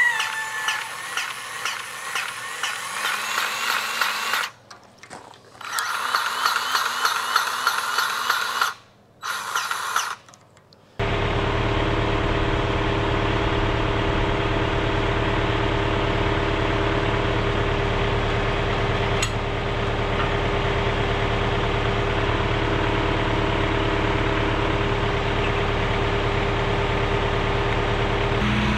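A cordless grease gun runs in three spells with a ratcheting pump sound, pumping grease into the loader grapple's fittings. A little over a third of the way in it gives way to the John Deere 4066R tractor's three-cylinder diesel engine running steadily at idle.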